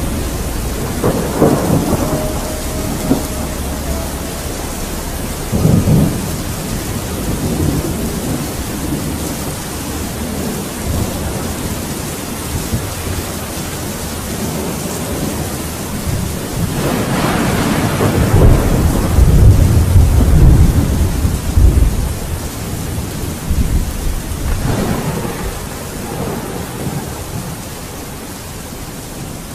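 Steady rain with rolls of thunder: short rumbles a second or two in and about six seconds in, a long, loudest roll just past the middle, and a smaller one a few seconds later.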